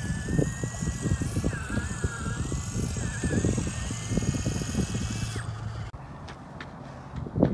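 Axial SCX24 micro crawler's electric motor and gears whining as it crawls, the pitch wavering up and down with the throttle, over a low rumbling noise. The whine stops about three-quarters of the way through, and a single knock comes near the end.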